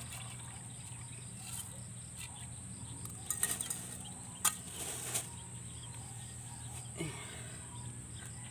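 Tin can and fertilizer being handled at a plastic bucket and plastic bag: a few short sharp clicks and rattles in the middle and one near the end, over a steady high-pitched hum.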